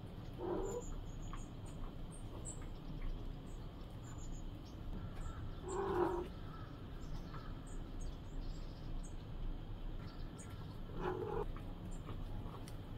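A crow cawing three times, one short caw about every five seconds, over faint high-pitched chirping.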